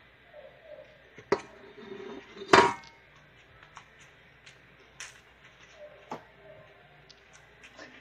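A few light knocks and clicks over quiet room tone, the loudest about two and a half seconds in with a short ring, and faint voices in the background.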